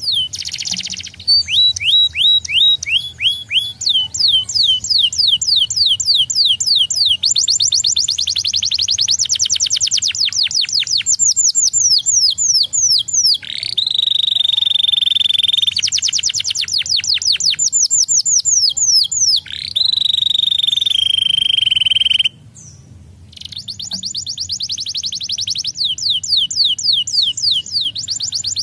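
Canary singing: fast trills of rapidly repeated falling notes, changing speed from one run to the next, with two long held whistled notes in the middle and a short break about two-thirds of the way through.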